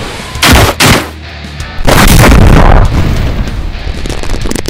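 Battle sound effects over background music: two short, sharp blasts about half a second in, then a heavier blast lasting about a second, starting near the two-second mark.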